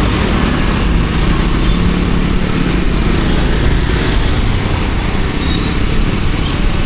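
Triumph Scrambler 400X's single-cylinder engine running steadily while riding, under a constant rush of wind and road noise.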